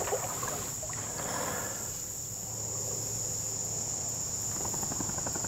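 Insects singing in one steady, high-pitched drone.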